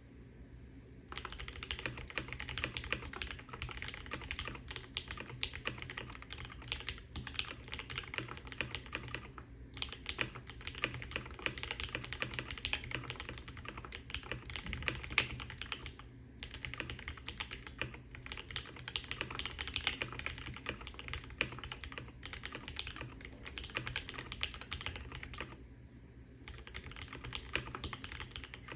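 Custom mechanical keyboard being typed on at a fast, steady pace, in rapid clicky-thocky keystrokes with a few short pauses. The board has an aluminium plate and PE foam, with lubed Gateron Black Ink V2 linear switches under GMK keycaps.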